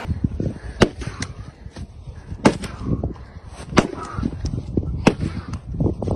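An axe chopping into firewood rounds, four sharp chops about a second and a half apart.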